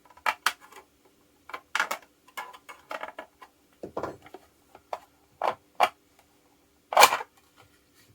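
Irregular clicks and knocks of a 3D-printed plastic battery case being handled and opened, with the loudest knock about seven seconds in.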